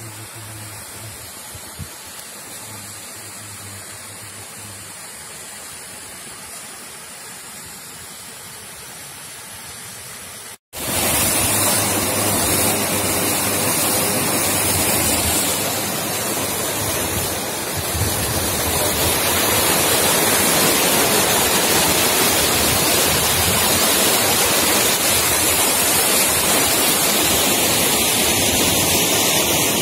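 Steady rushing noise with no distinct events. It cuts out briefly about ten seconds in and comes back much louder.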